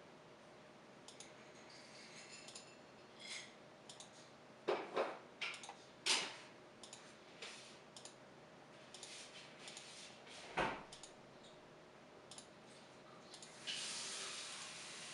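Faint, irregular clicks and taps of a computer mouse being clicked and dragged on a desk, the loudest about two-thirds of the way through. A steady hiss comes in near the end.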